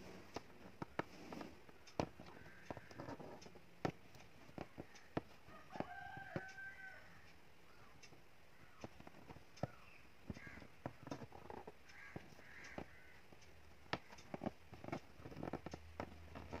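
Irregular sharp ticks, about one a second, of an aari hook needle punching in and out of fabric stretched taut on an embroidery frame while filling a leaf with silk-thread load stitch. About six seconds in there is a short pitched call, with a few fainter calls later.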